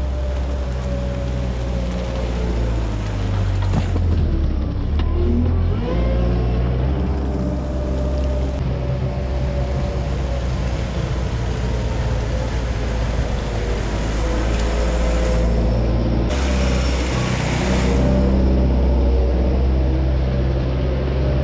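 John Deere loader's engine running steadily as it scrapes manure down the barn alley; its pitch dips and climbs again about four to six seconds in.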